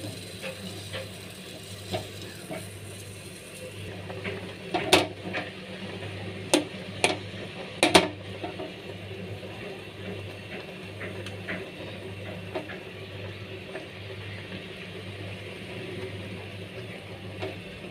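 A metal fork stirring instant noodles in boiling water in a metal pot, with several sharp clinks of the fork against the pot about five to eight seconds in, over a steady low hum.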